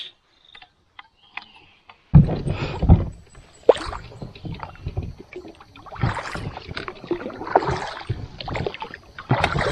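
Double-bladed paddle working an inflatable kayak through the water: about two seconds in, a run of paddle strokes starts, with splashing and sharp knocks.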